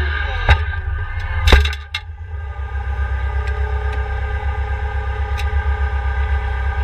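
New Holland L220 skid steer's diesel engine dropping from working speed to a steady, pulsing idle, with a few sharp clunks in the first two seconds, the loudest about a second and a half in.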